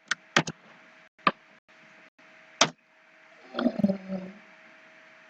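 Scattered sharp computer mouse clicks and keystrokes, five or so in the first three seconds, over a faint steady hum; a short muffled low sound comes a little past halfway.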